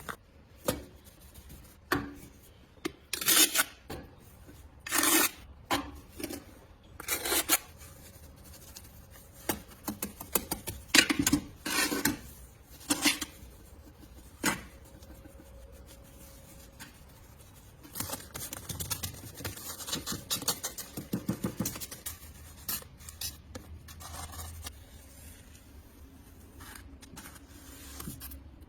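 Hand rasping and rubbing on a hard part in irregular strokes, sparse at first and then quicker and denser in the second half.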